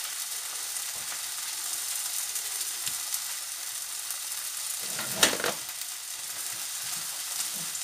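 Tomato slices sizzling steadily in a frying pan on a hob that has been switched off, searing in the leftover heat. A short, louder noise cuts in about five seconds in.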